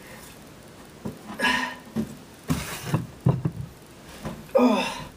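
A man grunting and breathing hard with strain while working a heavy 15-inch subwoofer into a cramped enclosure. There are two short grunts, one about a second and a half in and one near the end, a noisy breath or rustle in between, and a few sharp knocks.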